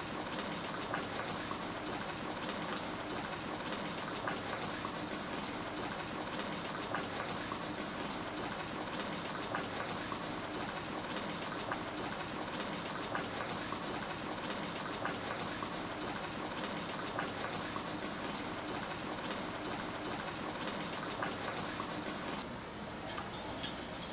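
Seafood and vegetable broth boiling in a frying pan: a dense, steady crackle of many small bubbles bursting. Near the end it drops to a quieter, thinner crackle.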